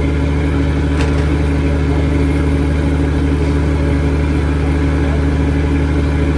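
Mechanized fishing boat's engine running steadily at an even speed, a constant low drone, with a faint click about a second in.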